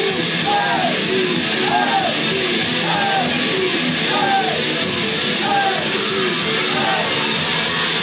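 Loud live rock-style pop song playing through a concert sound system, guitar-led, with a short rising-and-falling melodic figure that repeats roughly every second.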